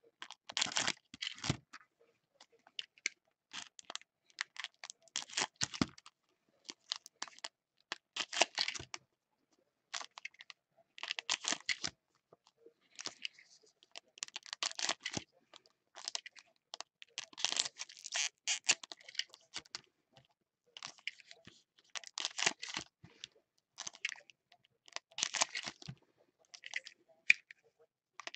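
Foil Panini Aficionado basketball card packs crinkling and rustling as gloved hands handle them, in irregular bursts a second or so apart with short quiet gaps.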